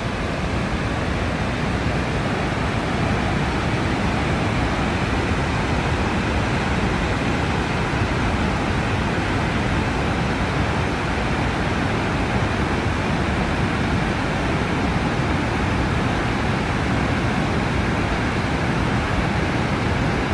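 Barron Falls in full flood after heavy wet-season rain: a steady, unbroken roar of falling water, strongest in the low end.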